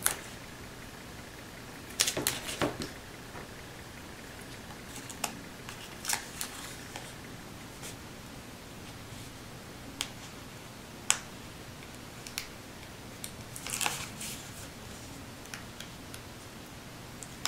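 Paper and crafting tools handled on a desk: scattered clicks, taps and paper rustles, with short clusters about two seconds in and near fourteen seconds, and two sharp clicks around ten and eleven seconds, over a faint steady hum.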